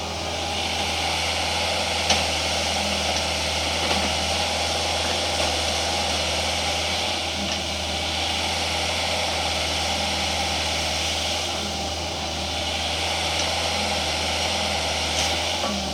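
Engine running steadily at a constant speed, with a few faint clicks.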